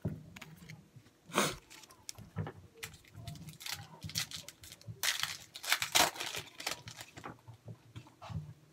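2013 Bowman football cards being handled and slid over one another: short papery rustles and flicks, with a busier cluster about five to six seconds in.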